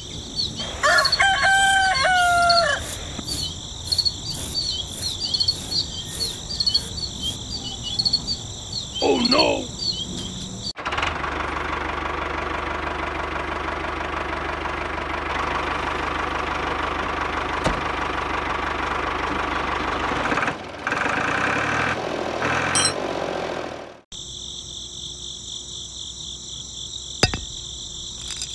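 Crickets trilling steadily, with a rooster crowing about a second in. Then, for about thirteen seconds, the small DC electric motor and gears of a homemade model tractor whir steadily as it drives, stopping abruptly, before the cricket trill returns with a single click near the end.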